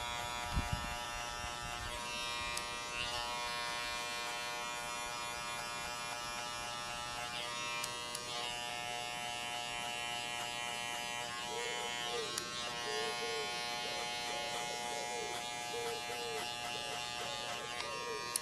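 Barber's electric hair clippers running with a steady motor buzz as they cut a skin fade.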